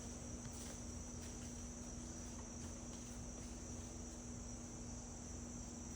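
Steady high-pitched chorus of insects, with a constant low hum underneath and a few faint clicks now and then.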